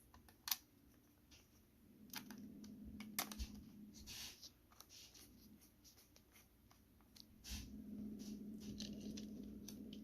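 A small screw being driven by hand with a precision screwdriver into a laptop's plastic bottom case: light clicks and scratches of the bit and screw, with a sharp click about half a second in and another about three seconds in. A low hum comes and goes in the background.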